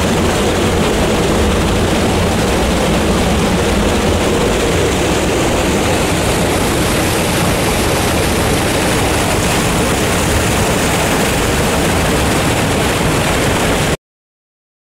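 Creek water rushing out of a cave mouth and down between boulders: a loud, steady whitewater rush that cuts off suddenly near the end.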